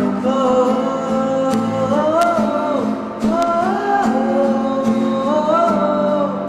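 A song: a man singing held, gliding notes over acoustic guitar accompaniment.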